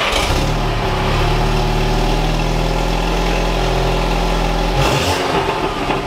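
VW MK6 Jetta GLI's 2.0-litre turbocharged four-cylinder running at a steady idle just after starting, its exhaust now flowing through a new aftermarket CTS Turbo downpipe into the stock muffler. The steady note breaks about five seconds in.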